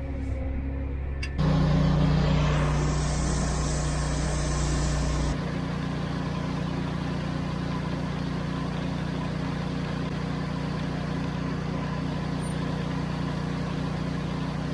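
Machinery running steadily: an engine hum under a hiss of dry fertilizer pouring off a Brandt 1547LP belt conveyor into a fertilizer spreader. The sound shifts abruptly about a second and a half in and again about five seconds in, then holds steady.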